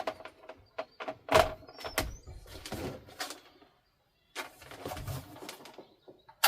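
Indoor handling sounds: a series of knocks, clicks and rustles, like things being moved and doors or latches worked, with the loudest knock about a second and a half in and a brief cut to complete silence midway.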